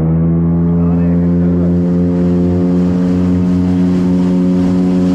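Motorboat engine running at a steady high pitch, having just throttled up. A rush of water and spray along the aluminium hull grows louder over the first second or so.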